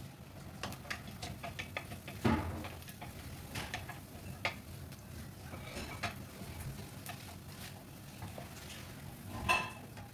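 Wooden spatula stirring chopped garlic in a nonstick frying pan, with irregular light scrapes and taps against the pan. Two louder knocks come about two seconds in and near the end.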